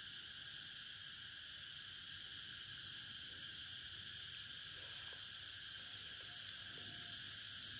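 Steady, unbroken insect chorus with a continuous high-pitched drone, with faint light rustling.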